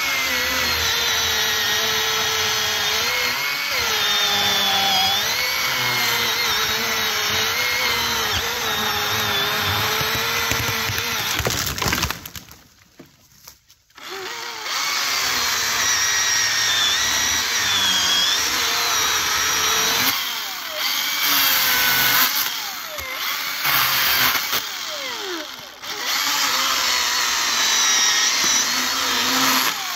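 Milwaukee M18 Fuel cordless electric chainsaw cutting into an alligator juniper trunk, its motor whine wavering in pitch under load. It stops for about two seconds near the middle, starts again, and in the last part revs up and down between cuts.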